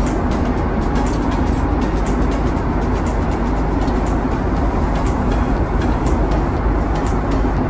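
Steady cabin noise of a Boeing 767 airliner in flight: engines and airflow running as an even, low-heavy roar, with faint scattered light clicks.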